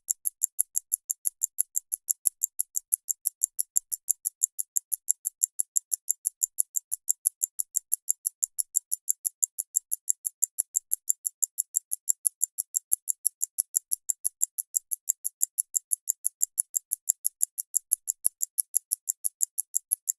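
Antique pocket watch ticking, recorded very close up: fast, steady, even ticks at about five a second, each a crisp, high-pitched click.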